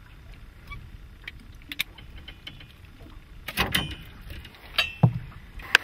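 Handling noises in a fishing boat while a landed channel catfish is held and unhooked: scattered small clicks and rattles, a louder cluster of clicks about three and a half seconds in, a dull thump about five seconds in and a sharp click near the end.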